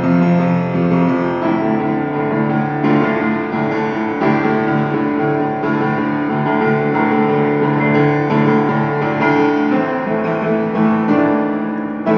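Piano playing a recital piece, with sustained chords and a moving melody line, continuous and without pause.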